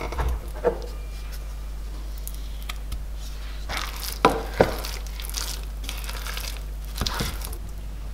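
A spoon stirring thick cooked red lentils and coconut oil in a stainless steel pot: wet squishing and scraping strokes, with a couple of sharp knocks against the pot about four seconds in.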